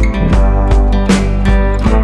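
Background music with a steady beat, led by strummed guitar.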